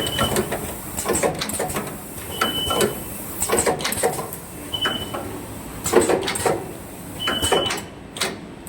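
Automatic plug and power-cord production machine running through its cycle: clusters of mechanical clacks, each with a short high beep, four times about two and a half seconds apart.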